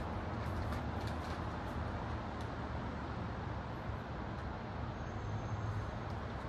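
Steady low rumble under an even hiss, with no distinct events.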